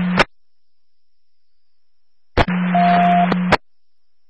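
Police radio on a scanner: after a quiet gap, a transmission keys up about two and a half seconds in. It carries only static hiss and a steady hum, with a short single beep in its middle. It clicks on and off and lasts about a second.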